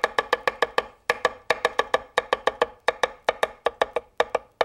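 Chinese cleaver rapidly julienning carrot on a wooden cutting board: quick, even knocks of the blade on the board, about eight a second, with a brief pause about a second in.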